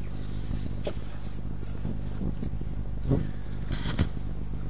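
Steady low background rumble with a few faint short knocks or rustles.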